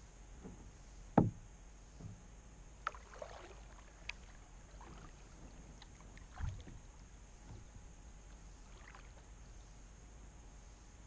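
Kayak paddling on calm water: a steady faint hiss broken by several short knocks and splashes of the paddle, the loudest knock about a second in and another about six seconds in.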